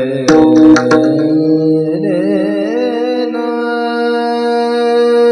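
Kirtan singing: a voice holds one long high note that wavers in an ornament and then steadies, over a steady instrumental drone, with a few sharp percussion strikes in the first second.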